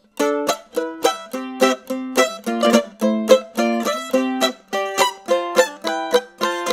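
A 1980s Japan-made Epiphone MM-45 two-point archtop mandolin, spruce over maple, played with a flatpick in rhythmic chord strokes at about three or four a second. The playing starts about a quarter second in, after a brief pause.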